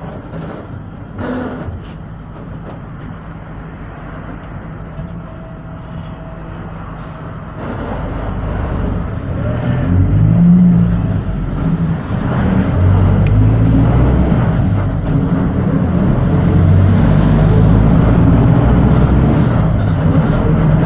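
Volksbus 17-230 OD bus engine, heard running more quietly at first, then from about eight seconds in pulling away loudly, its pitch rising and falling as it accelerates through the gears.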